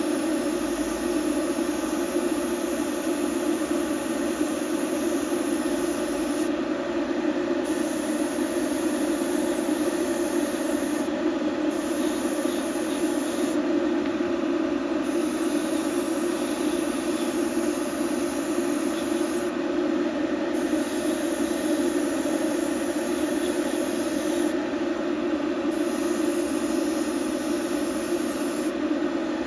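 A small electric motor running steadily at an even pitch, unchanging throughout.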